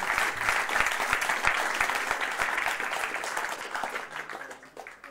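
Audience applauding, a dense patter of many hands clapping that thins out and dies away in the last second or so.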